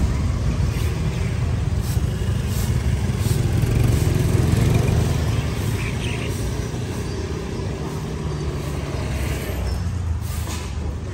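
Street traffic with motorbike engines running and passing close by: a low rumble that swells about four seconds in and then eases off.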